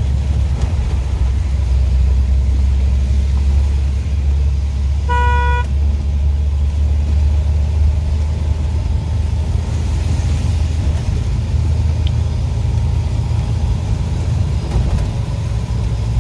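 Steady low rumble of a Maruti Suzuki Gypsy's engine and tyres heard from inside the cabin while driving on a wet road, with one short vehicle horn toot about five seconds in.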